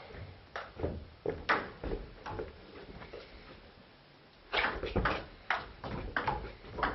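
Sharp clicks of a table tennis ball striking bat and table. A few scattered clicks, a lull just past the middle, then a quick run of them.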